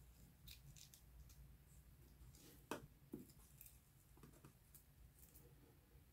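Faint crackling and ticking of a bearded dragon's dry shed skin being peeled away with metal tweezers, with two sharper clicks about halfway through.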